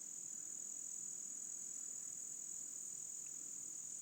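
Chorus of insects giving a steady, unbroken high-pitched drone.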